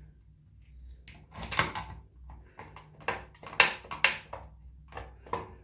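A series of irregular clicks, knocks and scrapes from hands and a tool working the cover off a dripping water tap, about six sharp clicks in all.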